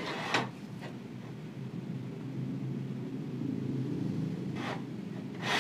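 Miter gauge of a Modern M608 table saw being slid and rocked in its miter slot, its bar shimmed to take out the play: a low rubbing with brief scrapes just after the start and near the end, over a steady low hum.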